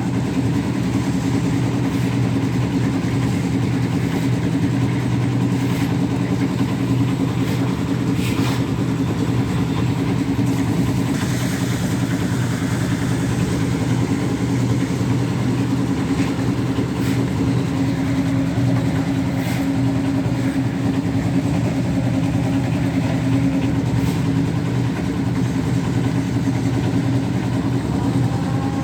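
An engine running steadily at constant speed on a concrete-casting site, with a few faint knocks over it.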